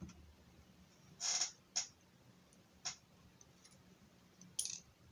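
A few small metallic clicks and taps, four in all over a few seconds, the first and last a little longer and scraping, as pins and springs are worked out of the Lockwood 334C45 padlock's cylinder.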